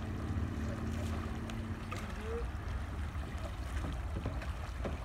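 Low wind noise on the microphone over open water, with faint splashes of kayak paddles.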